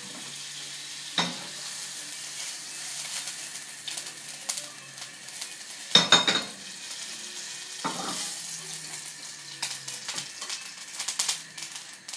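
Butter sizzling in a hot frying pan, a steady hiss, broken by several knocks and clatters of the metal pan and a utensil, the loudest about six seconds in.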